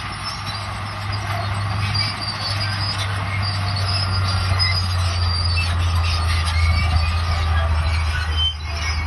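Bulldozer's diesel engine running steadily, with high metallic squealing and squeaking from its steel crawler tracks as it works.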